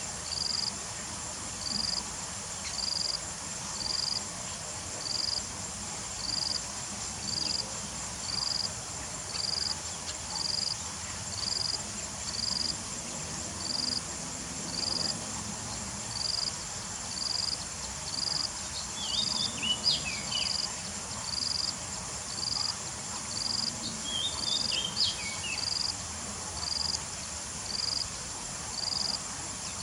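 Insects calling: a high chirp repeating about once a second over a steady high drone. Twice, about two-thirds of the way through, a small bird gives a brief burst of quick twittering notes, the loudest sounds.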